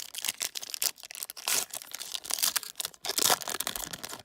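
Plastic wrapper of a trading-card pack crinkling and tearing as the pack is ripped open by hand, an irregular run of crackles.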